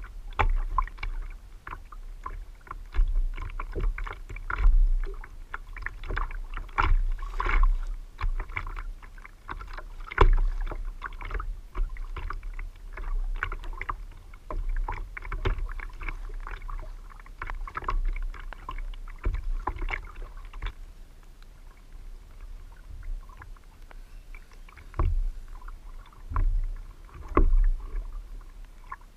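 Choppy water slapping and splashing against a plastic kayak hull, heard as irregular knocks over a low rumble; the knocks come thick and fast at first and thin out after about twenty seconds.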